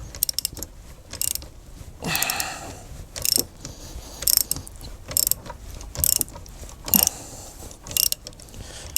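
Brake caliper piston wind-back tool being tensioned, its mechanism clicking in short bursts of several ticks about once a second, with one longer grinding stroke about two seconds in. The piston is being pressed back into the caliper so the new rubber gaiter pops into the piston's rim.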